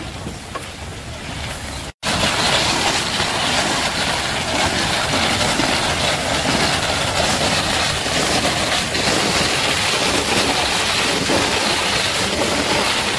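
Steady mechanical running with a rattle, from the motor-driven rotating freezing drum of a roller ice-cream machine. The sound cuts out for an instant about two seconds in and comes back louder.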